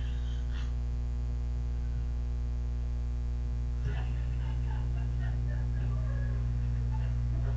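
Steady electrical mains hum, a low buzz with its overtones, running unbroken under the recording. From about four seconds in, faint scattered short sounds sit over it.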